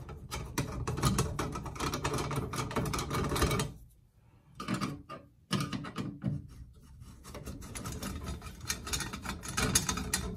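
Phillips screwdriver turning out the small screws of the retaining ring on a Delta 1300/1400 shower valve: a rapid run of fine metal clicks and scraping, with a short pause a little under halfway through.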